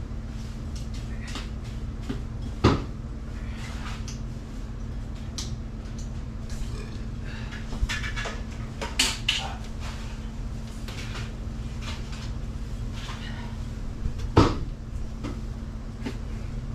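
A steady low mechanical hum with scattered clunks and clatter: two sharp knocks, one about three seconds in and a louder one near the end, and a few lighter knocks around the middle, typical of tools and fittings being handled.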